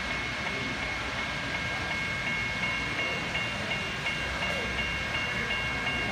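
N scale model container train running on the layout amid steady exhibition-hall noise, with two steady high tones. From about two seconds in, a high pulsing tone repeats about three times a second.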